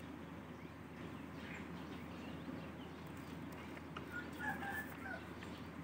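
A bird calls briefly, a few short notes about four seconds in, over a faint steady outdoor background.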